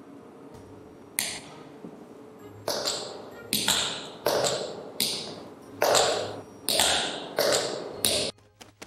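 Slow walk of hard-heeled shoes on a ceramic floor tile: about nine sharp heel clicks, each with a short ringing tail, the first about a second in and the rest evenly paced. These are Foley footsteps made with heeled tap shoes to stand in for a woman walking in high heels.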